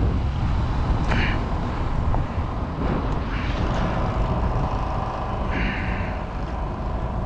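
Heavy truck traffic: a steady low rumble with a few short hisses, and a steady engine whine through the second half.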